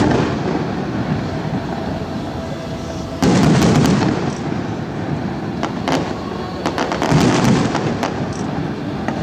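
Aerial fireworks shells bursting: a deep boom about three seconds in and another about seven seconds in, with sharp crackling between them.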